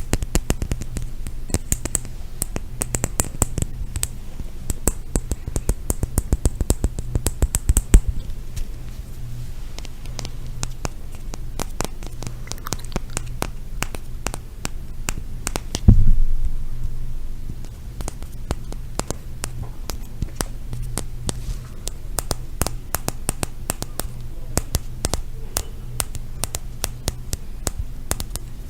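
ASMR tapping and scratching on objects: rapid, irregular taps and clicks throughout, with one heavier thump about halfway through. A low steady hum runs underneath.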